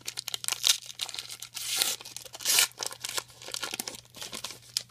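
Foil wrapper of a trading-card pack being torn open and crinkled by hand: a run of irregular crackling rips, the loudest a little under two seconds and about two and a half seconds in, fading out near the end.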